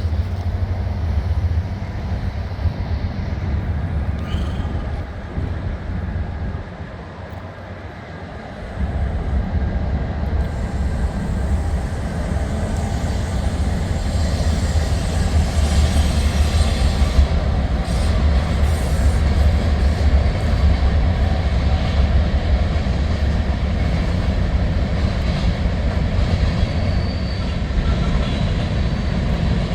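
Freight train running past with a steady, heavy low rumble of locomotives and rolling cars. It dips briefly about seven seconds in, then grows louder, with faint high wheel squeal near the end.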